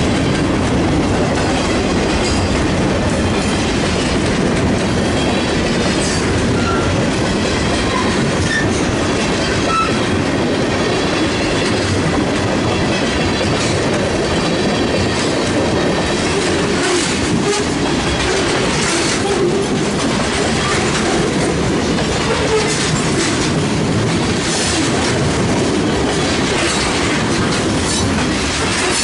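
Mixed freight train rolling past at close range: loud, steady rumble and clatter of steel wheels on the rails as boxcars, tank cars and covered hopper cars go by.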